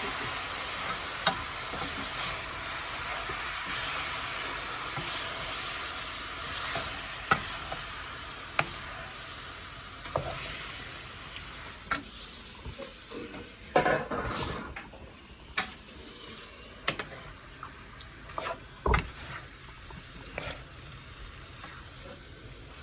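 Chicken pieces sizzling in caramelised burnt sugar and oil in a pot, being stirred for stew chicken, with occasional knocks and scrapes of the stirring utensil against the pot. The sizzle is loudest at first and dies down over the first several seconds, leaving quieter frying and sharp knocks.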